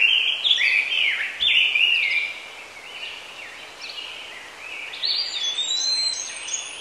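Songbirds chirping: a run of quick whistled notes, each sweeping up and down in pitch, over a faint outdoor hiss. The notes are louder for the first two seconds, then grow fainter.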